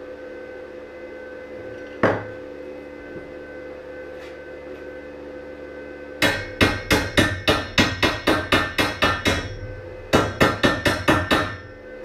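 Hammer knocking on the sofa's welded steel-tube frame, chipping slag off a freshly laid weld seam. One sharp knock comes about two seconds in, then two fast runs of ringing metal blows, about five a second, in the second half.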